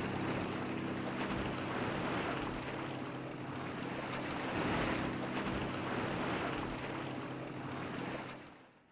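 Sea waves washing in slow swells over a low, steady hum, fading out near the end.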